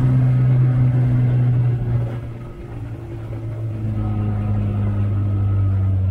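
Small tiller-steered outboard motor running on a jon boat under way, a steady low drone. About two seconds in, the engine note drops in pitch and dips in level, then holds steady at the lower note.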